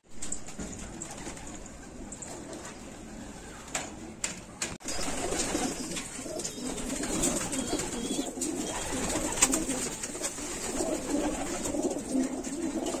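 Many domestic pigeons cooing together in a coop, a dense overlapping murmur of low coos that grows fuller about five seconds in, with a few sharp taps among them.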